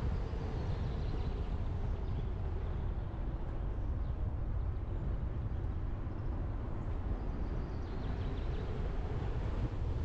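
Steady low wind rumble and tyre noise from a Tesla Model X driving along a road, heard at a GoPro mounted on the car's front roof. The car is electric, so there is no engine sound.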